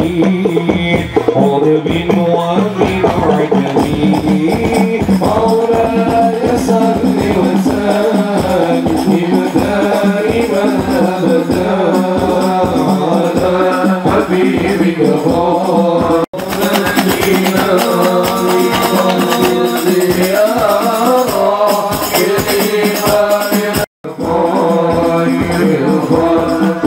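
Hadroh music: rebana frame drums with jingles beating a dense, even rhythm under a sung sholawat melody. The sound breaks off for an instant twice, about 16 and 24 seconds in.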